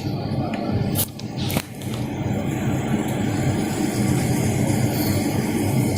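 Steady background rumble with two brief clicks, about one and one and a half seconds in.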